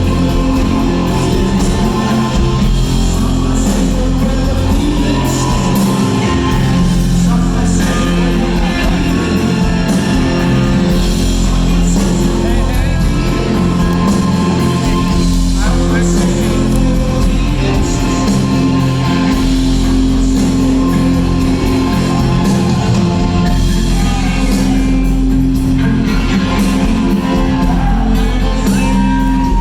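Rock band playing live in a concert hall: loud electric guitar holding long notes over bass and drums.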